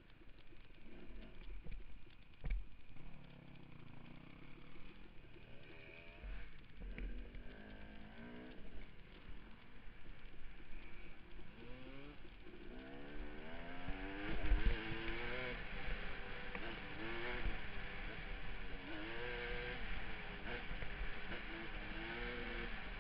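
Off-road motorcycle engine riding along, its pitch rising and falling over and over with the throttle. It is faint at first and louder from about halfway through, with a couple of sharp knocks from the bike going over bumps.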